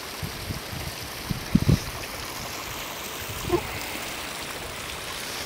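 Steady rushing of a mountain stream, with a few low thumps about one and a half seconds in.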